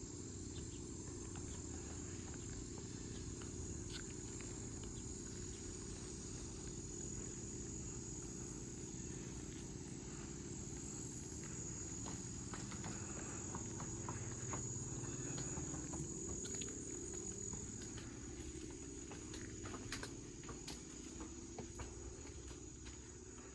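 Insects, crickets by the sound, trilling steadily in one high continuous tone, over a low rumble with a few faint clicks.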